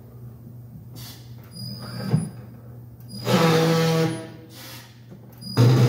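Tire changing machine running in two short runs, its motor humming steadily while the rubber tire bead scrapes and rubs against the rim as it is worked on. The second run comes near the end.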